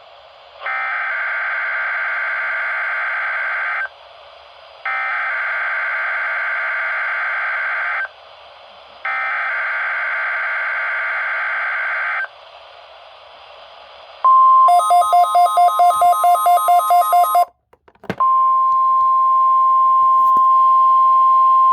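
NOAA Weather Radio alert test: three screechy bursts of the SAME digital header, each about three seconds long, followed by the 1050 Hz warning alarm tone. For a few seconds the tone is mixed with a rapid beeping pattern of about four pulses a second and briefly cuts out, then it holds as one steady tone.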